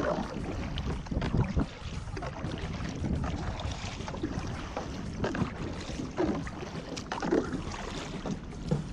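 Kayak paddle strokes dipping and splashing in floodwater, with irregular louder splashes every second or so over a steady wash of water noise.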